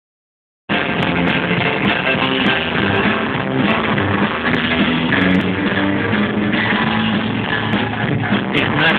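A live rockabilly band plays an instrumental passage through a stage PA: electric and acoustic guitars, upright double bass, piano and drums. It starts abruptly a moment in and sounds dull, with no treble.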